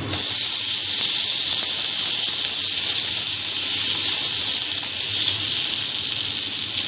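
Chopped tomatoes sizzling hard in hot oil in a frying pan with fried onions: a loud, steady hiss that starts suddenly as they go into the oil.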